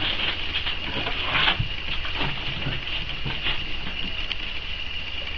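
Four-week-old Boxer puppies squeaking and whimpering in a high chorus, with the scratching patter of paws on cardboard and newspaper.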